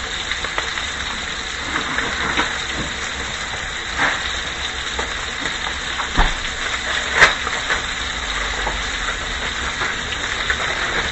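Rib-eye steak, onions and mushrooms sizzling in butter in a skillet: a steady hiss, with a few short knocks at the pan.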